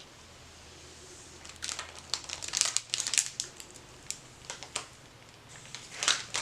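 A snack wrapper being handled and crinkled in irregular bursts, starting about one and a half seconds in, with a few more crinkles near the end.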